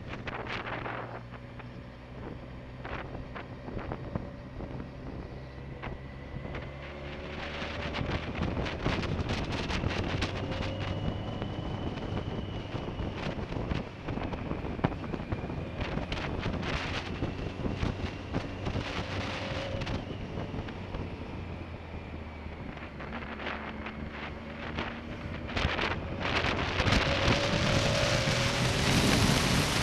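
2005 BMW K1200S inline-four engine running under way, its pitch rising and falling as the bike speeds up and slows, with wind noise buffeting the mounted camera's microphone. The wind noise grows louder near the end.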